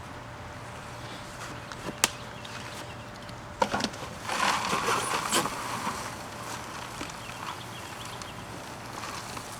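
Potting soil in a container tub being dug and scraped through by hand: a sharp knock about two seconds in, a few knocks near four seconds, then a couple of seconds of rustling and scraping of soil.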